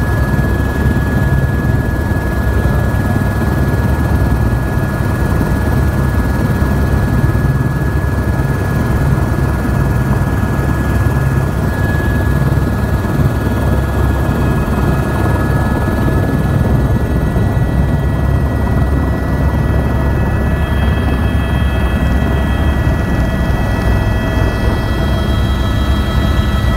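Helicopter running with its rotor turning and turbine whining, heard from on board; more whining tones join in over the last several seconds as it lifts off.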